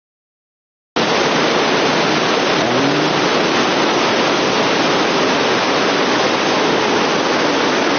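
Steady, loud rush of a waterfall, starting abruptly about a second in after silence.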